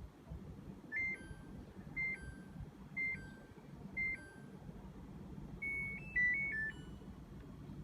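Samsung FlexWash washing machine's control panel beeping: four two-note beeps about a second apart, each stepping down in pitch, then a short tune of several notes.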